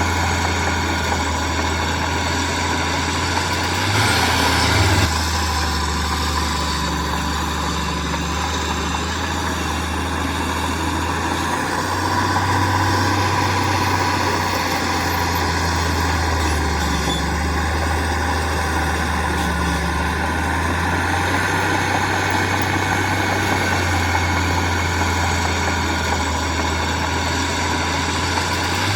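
Heavy construction machinery's diesel engine running steadily with a low drone, swelling briefly about four seconds in.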